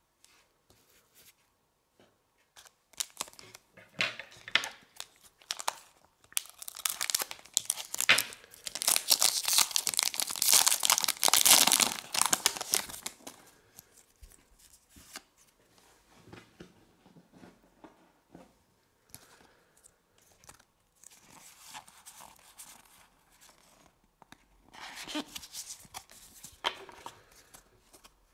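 The foil wrapper of a Pokémon trading card booster pack crinkling and tearing open. It is loudest in one dense stretch of several seconds in the middle, with softer crackles and rustles around it and another short burst of crinkling near the end.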